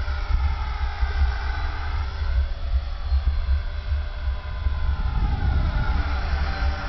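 HK-450 electric RC helicopter (a T-Rex 450 clone with a brushless motor) flying, its motor and rotor whine sweeping up and down in pitch as it moves around the pilot, over a steady low drone.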